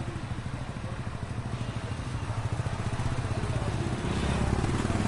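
Motorcycle engine running with a fast, even firing pulse amid street traffic, growing louder about four seconds in.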